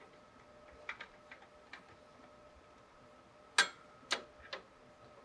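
Small clicks of a screwdriver on a CPU heatsink's mounting screws as they are snugged down: a few faint ticks, then three sharper clicks about half a second apart in the second half.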